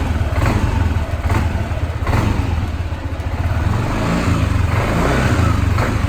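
Yamaha NMAX 155 scooter's single-cylinder engine running and being revved in repeated short blips of the throttle, with a KOSO Hurricane aftermarket air filter fitted on the intake.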